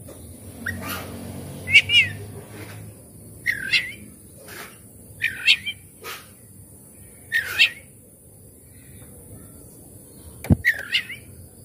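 Oriental magpie-robin (kacer) giving short, harsh calls, each a quick hooked up-and-down note, repeated about every one and a half to two seconds. A single sharp knock comes near the end.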